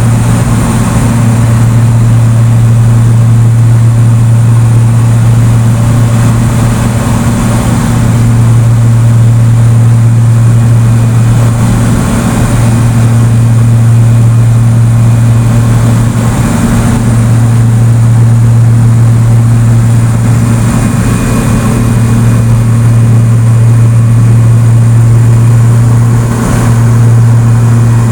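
Airplane engine and propeller droning steadily in flight, one constant low hum with a slight swell every few seconds.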